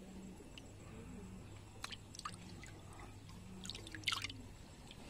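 Water dripping and splashing as a hand moves in a shallow fish tank, with a few sharp drips about two seconds in and a louder cluster near four seconds.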